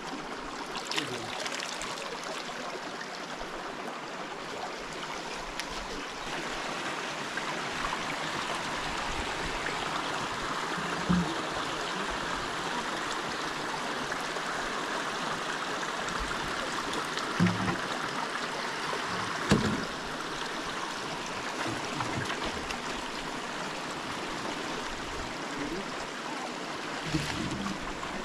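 A river running steadily, an even rush of flowing water, with a few short dull thumps, the loudest about two-thirds of the way in.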